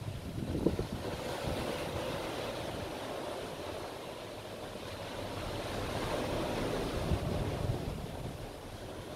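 Surf washing onto the shore in slow swells, with gusts of wind buffeting the microphone, strongest near the start.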